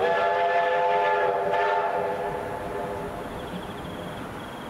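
An approaching train sounding its multi-note chord horn in one long blast of about three seconds, with a brief catch about a second and a half in, then fading.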